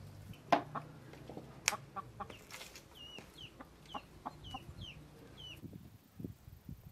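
Chickens clucking and calling, then a run of short high chirps about twice a second that stops abruptly near the end.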